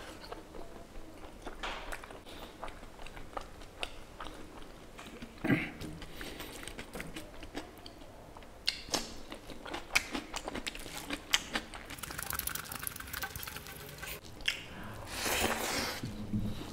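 Close-miked chewing and biting of spicy pork curry with rice, with many short wet mouth clicks and smacks, and a longer, louder burst of noise near the end.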